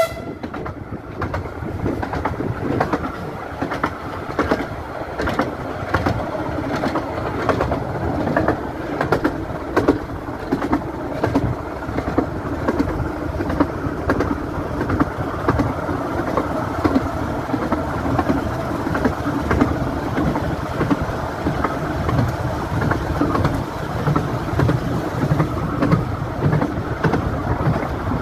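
15-inch-gauge steam railway carriage running along the line: a steady rumble with a scatter of clicks from the wheels on the track.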